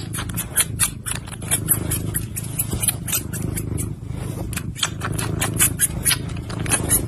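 Tabby cat gnawing on a person's finger: quick, irregular wet clicks of teeth and mouth, several a second, over a steady low rumble.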